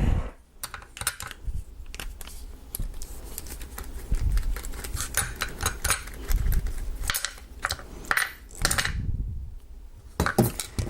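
Small metal tools and padlock parts clinking and clicking irregularly against each other and a hard surface, as a screwdriver is picked up and the padlock is handled to take it apart.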